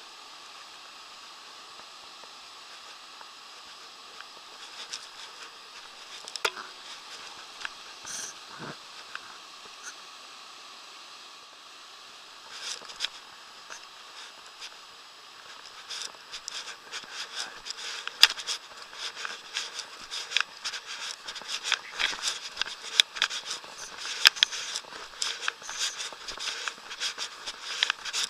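Steady rush of fast-flowing river water over shallows. From about halfway in, a dense run of irregular clicks and rustles joins it, from the angler moving and handling gear in the bank grass close to the camera.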